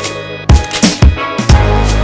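Electronic music with a deep bass and a steady, punchy kick-drum beat.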